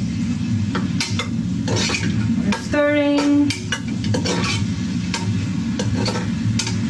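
Long metal spoon stirring onions frying in oil in a large aluminium stockpot, with irregular scrapes and clinks against the pot's sides.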